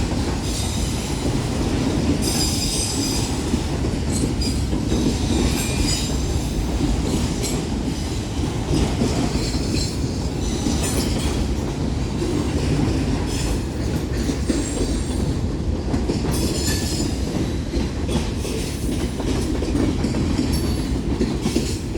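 Cars of a long freight train rolling past, with a steady rumble and clatter of steel wheels on rail. Brief high-pitched wheel squeals cut in several times.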